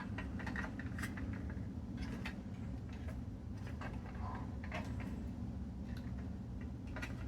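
Scattered faint clicks and light rattling of plastic wire-harness connectors being handled and plugged onto a washer control board, over a steady low hum.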